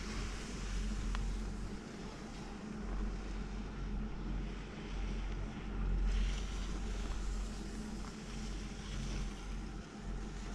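Wind buffeting the microphone on a moving chairlift, a low rumble that swells and fades in gusts, loudest about halfway through, over a faint steady low hum.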